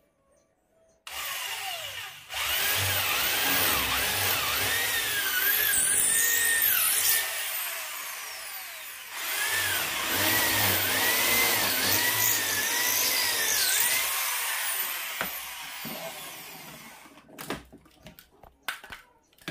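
Corded electric drill running under load in two long runs with a short stop between, its motor whine repeatedly dipping and recovering in pitch as the bit bites. A few light clicks and knocks of handling follow near the end.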